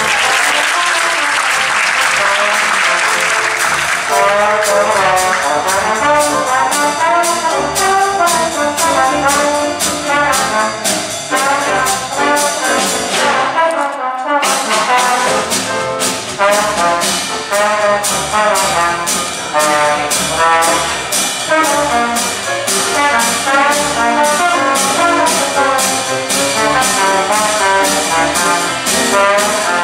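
Trad jazz combo of trombone, trumpet, saxophone, upright bass, piano and drums playing an up-tempo number, with the trombone to the fore over a crisp, steady beat. A wash of noise sits under the first few seconds, and the sound drops out for an instant about halfway through.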